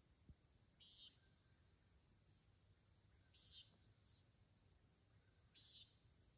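Faint night insect chorus: a steady high trill runs underneath, and a short, scratchy high call repeats about every two and a half seconds, three times. There is a small click near the start.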